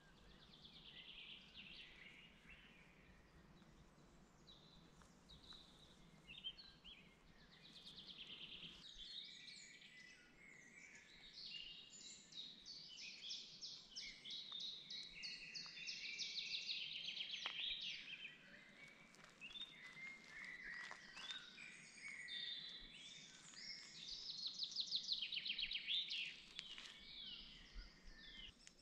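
Several songbirds singing, overlapping chirps and fast trills, loudest in the middle and again near the end.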